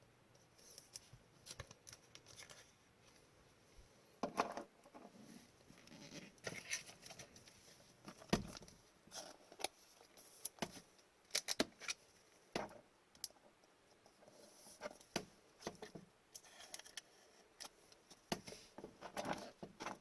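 Trading cards being handled close to the microphone: faint, scattered clicks, slides and scrapes as cards are flicked, shuffled and set down.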